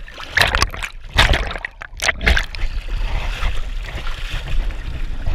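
Seawater splashing and sloshing right at the microphone as a swimmer climbs onto the rear deck of a jet ski: a few loud splashes in the first two and a half seconds, then a steady wash of water.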